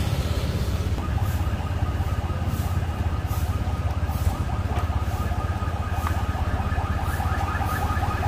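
Motor scooter engine idling steadily under street traffic, with a fast-repeating two-pitch electronic beeping, like an alarm, starting about a second in and getting stronger.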